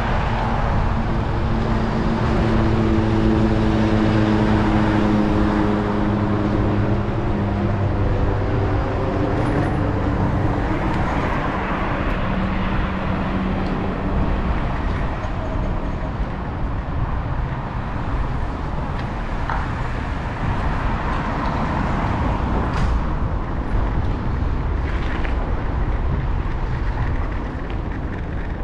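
Wind buffeting the microphone of a bike-mounted camera while riding along a city street, with road traffic. A motor vehicle's engine drones and slowly drops in pitch through the first half.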